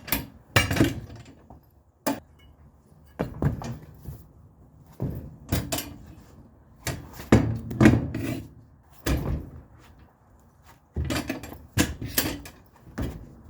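Irregular metallic clunks and knocks from a Harbor Freight manual tire changer as its long bead-breaker arm is pushed down on the tire, working the tire bead loose from the wheel.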